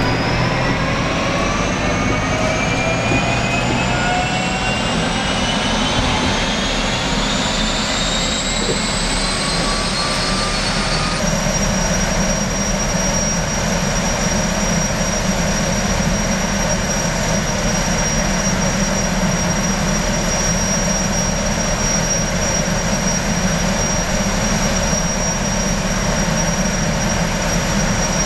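Jetfoil gas turbines whining over a rumble and the rush of water jets. For about the first ten seconds the whine rises steadily in pitch as a turbine spools up, then it holds as one steady high whine.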